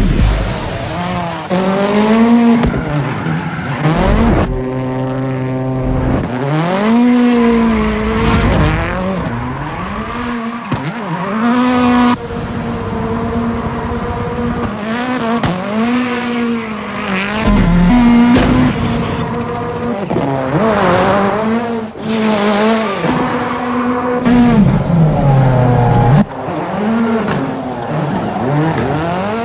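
Ford Fiesta rally car engine revving hard while the car drifts, its pitch climbing and dropping again and again, at times held level at high revs, with tyres squealing at times.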